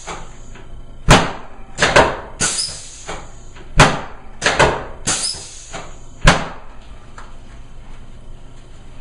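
Air-compressor-driven chiropractic drop table (Thompson technique): a series of sharp bangs as its raised segments drop under the adjusting thrusts, about nine in five seconds, some in quick pairs. Some bangs are followed by a short hiss of air.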